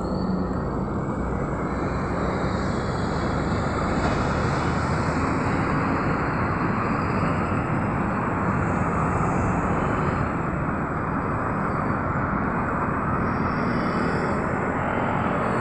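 Steady road traffic noise: cars and vans passing on a busy street, a continuous rumble and tyre hiss with no breaks.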